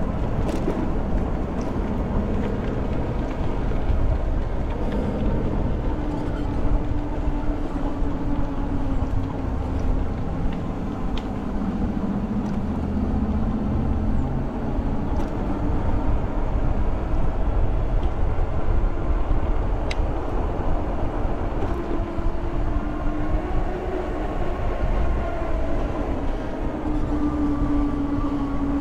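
2023 Jasion EB7 2.0 e-bike riding along: steady wind rumble on the microphone with a faint hum from the bike that drifts up and down with its speed.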